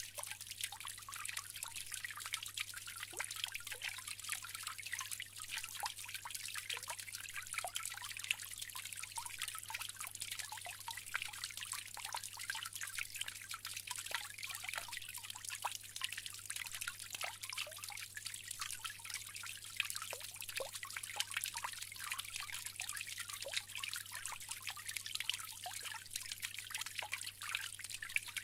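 Bamboo water fountain trickling steadily, a constant patter of small drips and splashes.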